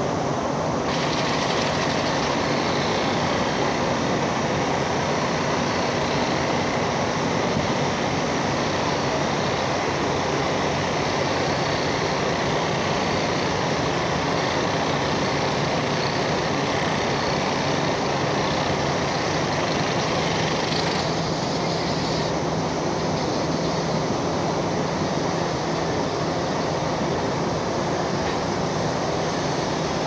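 Steady loud rushing noise of a blast furnace taphole during tapping, as molten iron and hot gas jet out, with a low steady hum underneath. The higher hiss eases a little about two-thirds of the way through.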